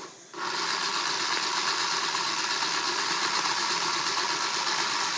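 Small battery-powered motor of a Crayola Thread Wrapper toy spinning steadily as it wraps thread, switching on about half a second in.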